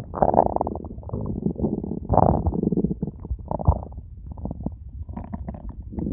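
Stomach growling: a run of gurgles and rumbles that swell and fade in irregular bursts.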